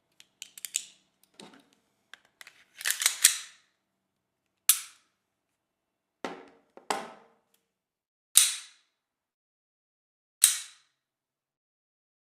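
A series of sharp cracks with short decaying tails. They come first in quick clusters, then singly, one every second or two.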